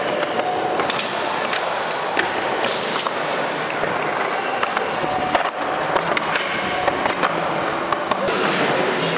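Skateboard wheels rolling on a smooth concrete floor, a steady rumble broken by several sharp clacks of the board and wheels.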